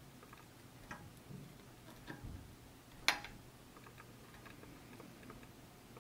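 A few faint clicks of a metal fork against a ceramic plate as a fry is picked up, the sharpest about three seconds in.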